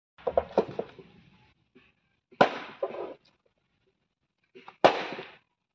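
A chopping knife striking a wooden plank while cutting up a plucked chicken. There is a quick run of knocks at the start, then two hard chops about two and a half seconds apart.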